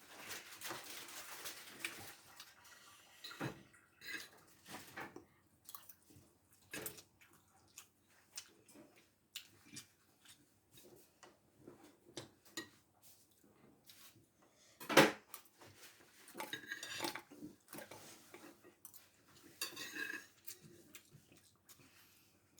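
Eating utensils clinking and scraping against a bowl and cup during a meal: scattered small clicks, with one sharper knock about fifteen seconds in.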